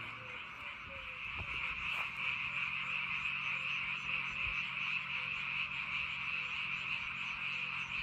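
Many frogs calling together from flooded rice paddies: a dense, steady chorus with fainter lower croaks repeating underneath.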